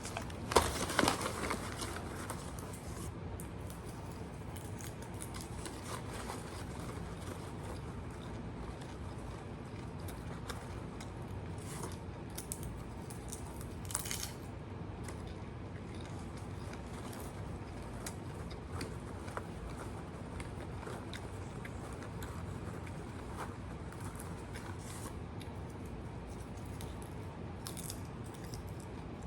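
Brief rustling and clicking handling noises in the first couple of seconds, one sharp click about halfway, then steady low room noise with scattered faint ticks.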